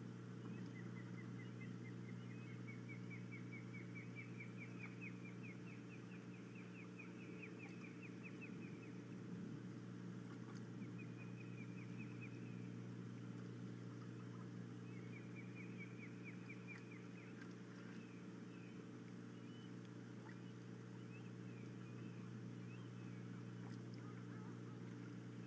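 Osprey calling: a long run of rapid, high whistled chirps, about five a second, rising slightly in pitch, then two shorter runs of the same chirps about halfway through. A steady low hum lies underneath.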